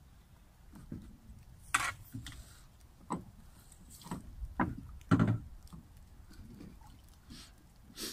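Scattered knocks and clunks, with a scrape or two, from someone moving about in a small aluminium boat while handling a fishing rod and a landing net. The loudest knocks come around two seconds in and again about five seconds in.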